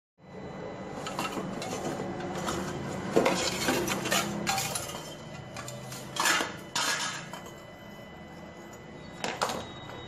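Metal pliers clinking and scraping against copper refrigerator tubing, an irregular run of metallic clinks with louder ones about three, six and nine seconds in.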